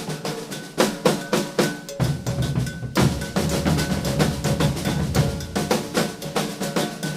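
Maracatu percussion group playing a rhythm: dense snare-drum strokes over a steady pattern, with the deep bass drums coming in strongly about two seconds in.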